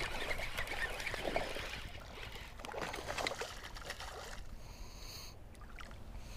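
Water splashing and lapping beside a plastic fishing kayak, with small irregular knocks and clicks from the boat and handled gear.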